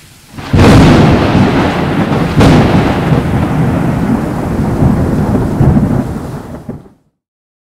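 Thunder: a sharp crack about half a second in and a second crack about two seconds later, with heavy rolling rumble between and after them that dies away and stops abruptly near the end.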